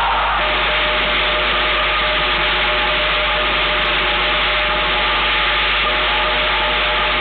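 A loud, steady wash of hiss-like noise over a low hum, with no clear beats or rhythm.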